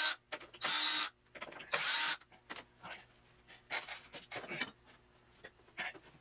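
Cordless drill run in three short bursts within the first two seconds or so, then quieter scattered handling knocks and rubs.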